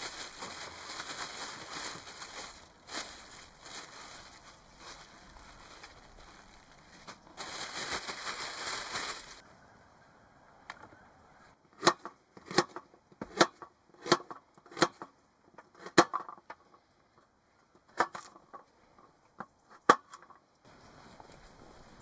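A plastic bag crinkling and rustling as raw beef is shaken in it with flour. Then a kitchen knife chops through carrot onto a wooden table top, a string of sharp knocks at an uneven pace of roughly one to three a second.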